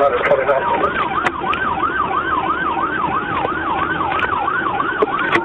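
Police car siren on a fast yelp, rising and falling about three times a second, over the road noise of the moving cruiser.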